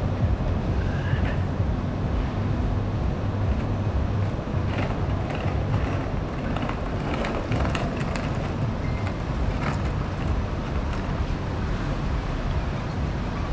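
City street ambience: a steady low rumble of traffic, with scattered light clicks and brief faint sounds, busiest in the middle.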